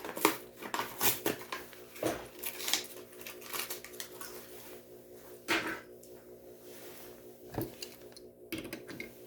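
Hot Wheels blister-card packaging being pried and torn open by hand: irregular plastic crackling and clicks, busiest in the first half and thinning out toward the end.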